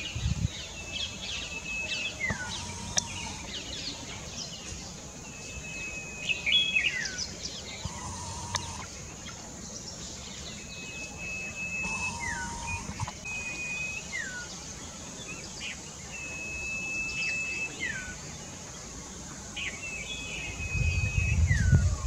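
A small yellow songbird whistling: a long held note followed by a quick falling slur, repeated every few seconds, with short chirps in between. A lower short note sounds a few times, and a low rumble comes in near the end.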